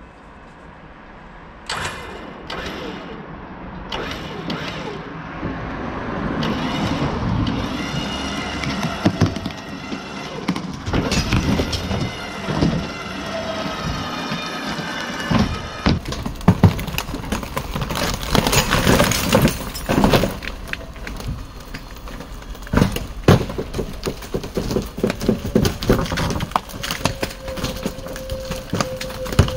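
An RV's body being winched over and torn apart: creaking and straining of metal and wood as it tips, then many sharp cracks and crashes as the aluminium-skinned, wood-framed structure breaks up and collapses.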